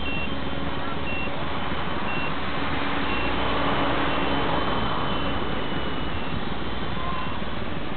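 A 450-size radio-controlled helicopter flying, a steady hum under heavy hiss that swells a little midway, the hum fading out about halfway through. A short high beep sounds about once a second.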